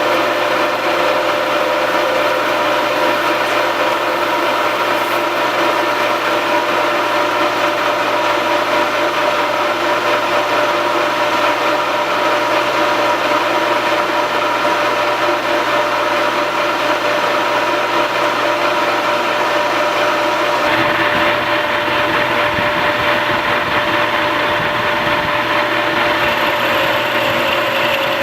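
Metal lathe running with its Bridgeport True Trace hydraulic tracer unit working: a steady machine hum with a whine. About two-thirds of the way through, the sound shifts and a lower rumble comes in.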